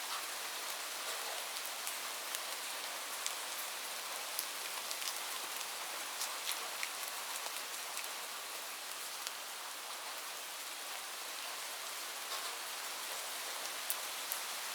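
Light rain falling steadily, a soft hiss with scattered sharper drop ticks.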